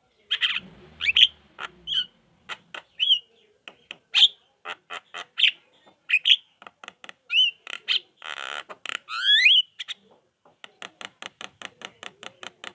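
Javan myna chattering: a jumble of dry clicks, harsh rasping calls and short whistled notes that slide up and down, ending in a fast, even run of clicks at about eight a second.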